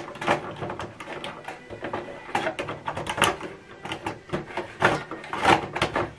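Plastic clicks, knocks and rattles of an HP 305 black ink cartridge being handled and pushed into an inkjet printer's cartridge carriage, a quick irregular run of small taps.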